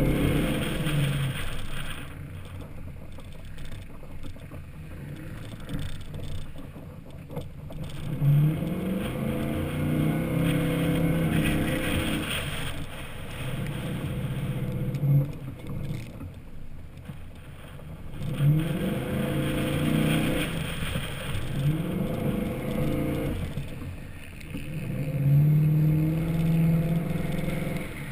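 2007 Chevy Avalanche V8 with a Flowmaster exhaust, revving up in repeated surges and easing off between them as the truck is driven through soft dune sand.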